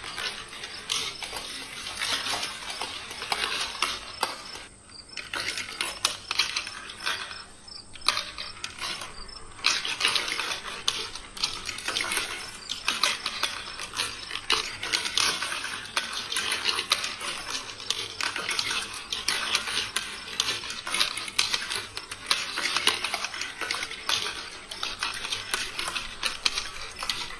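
Marbles rolling and clattering along plastic two-rail marble-run tracks: a steady stream of quick clicks and rattles that thins briefly twice, about five seconds in and again around eight to nine seconds.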